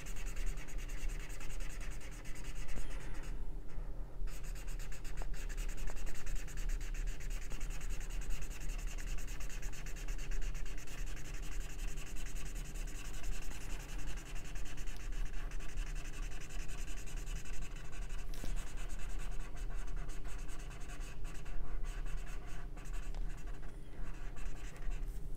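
Felt-tip marker scribbling on paper in quick back-and-forth strokes as an area is coloured in, with a couple of brief pauses.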